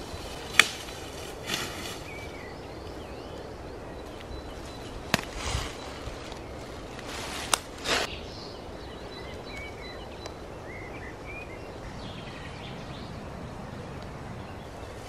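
Bunches of freshly picked wild greens handled over dry leaf litter: a few sharp clicks and short rustling bursts, with birds chirping faintly in the forest background.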